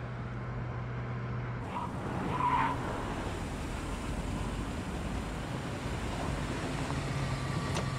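Car engines running steadily at low speed in traffic, with a short tyre squeal about two and a half seconds in.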